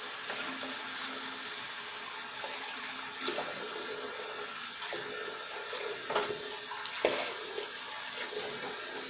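A steady rushing hiss with a faint hum under it, broken by a few short knocks and rustles of handling in the second half.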